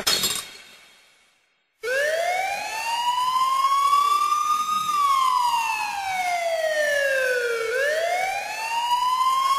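Siren wailing slowly after a short silence. It rises in pitch for about three seconds, falls for about three, then starts rising again, like a siren sound effect dropped into a dance mix.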